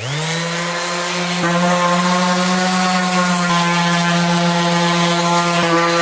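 Electric sander switched on, its motor spinning up to speed in a fraction of a second, then running steadily with a loud, even whine.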